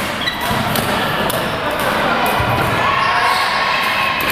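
Badminton rackets striking shuttlecocks in a rally, sharp pops about once a second from more than one court, with a few short high sneaker squeaks on the court floor. Faint chatter carries in the echoing hall.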